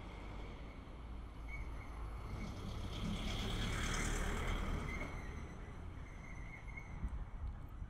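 Small box truck driving past close by, its engine and tyre noise growing to a peak about four seconds in, then fading as it moves away.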